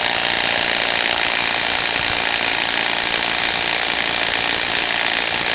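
Milwaukee FIW212 cordless impact wrench hammering steadily under load, a dense continuous rattle with a constant high whine, as it drives a fastener tight on a hydraulic torque tester.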